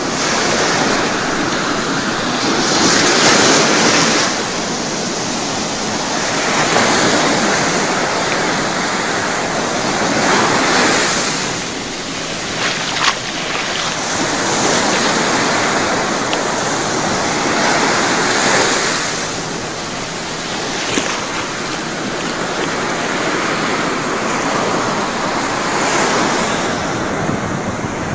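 Ocean surf breaking on a beach: waves crash and wash in continuously, the rush of water swelling about every three to four seconds.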